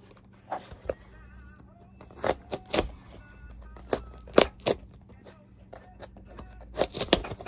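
Small knife slitting the packing tape along the seams of a cardboard shipping box: scattered clicks, scrapes and crackles of blade, tape and cardboard, over a steady low hum.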